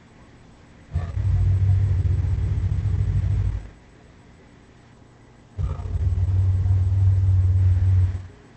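Gorosaurus film-monster sound effect: two long, deep growls, each about two and a half seconds, the first starting about a second in and the second just past the middle.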